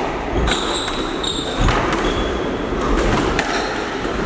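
Squash rally: the ball struck by rackets and hitting the walls several times, sharp cracks a second or so apart, with shoes squeaking briefly and footsteps thudding on the wooden court floor.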